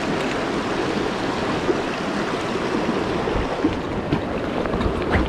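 Fast water rushing and splashing over rocks in a shallow stream riffle, a steady wash. A few low thumps sound in the last couple of seconds.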